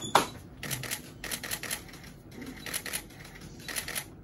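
Camera shutters clicking in short quick runs, a few clicks at a time, about once a second.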